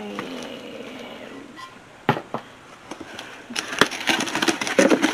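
Plastic bubble-wrap packing being handled and crinkled. There are a few sharp clicks about two seconds in, then a dense crackling from about three and a half seconds on.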